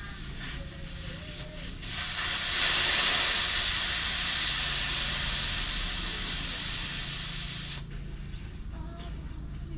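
Air hissing out of a Yamaha YZ85 dirt-bike tire's valve stem, letting down an overinflated tire. The hiss starts about two seconds in, is loudest at first, fades slowly, and cuts off sharply after about six seconds.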